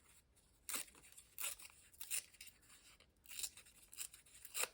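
A piece of paper torn by hand in a series of short rips.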